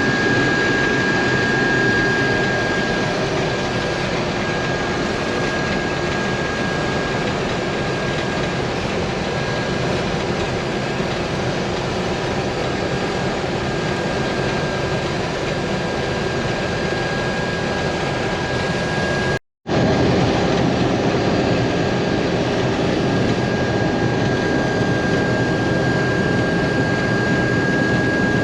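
International Harvester combine harvester running steadily while cutting wheat: an even, dense machine noise with a thin, steady high whine over it. There is a brief break in the sound about two-thirds of the way through.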